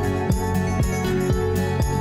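Background music with a steady beat, a kick drum about twice a second under sustained tones.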